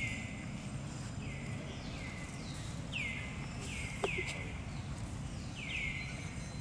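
An animal's short calls, each sweeping down in pitch and levelling off, repeated about eight times at uneven intervals over a steady low outdoor rumble, with one sharp click about four seconds in.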